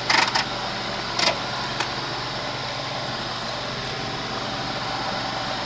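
Metal tongs knocking twice against a stainless steel stockpot as a plastic part is lowered into a dye bath, over a steady low machine hum.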